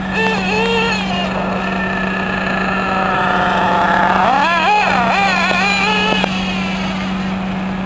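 Small two-stroke nitro engine of a Losi 8ight 2.0 radio-controlled racing buggy, revving up and down as the buggy is driven. The revs swell and fall loudest in the middle and drop off sharply a little past six seconds in.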